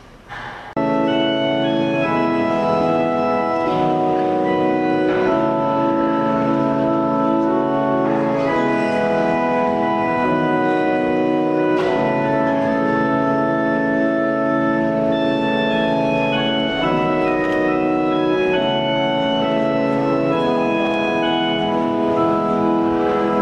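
Organ playing slow, sustained chords that change every second or two, starting suddenly about a second in.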